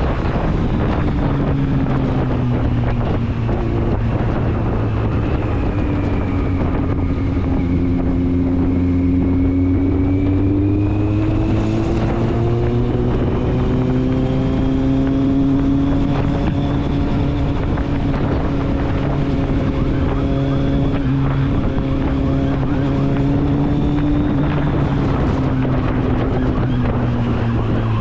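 Kawasaki Z750 inline-four engine and exhaust running while riding, its pitch slowly rising and falling with gentle changes in engine speed, with wind on the microphone.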